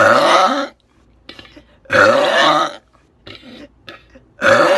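A woman burping three times, each belch under a second long and about two seconds apart, the last starting near the end.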